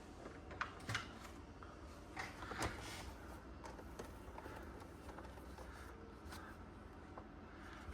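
Faint rustling and a few light taps of trading cards being picked up and handled, mostly in the first few seconds.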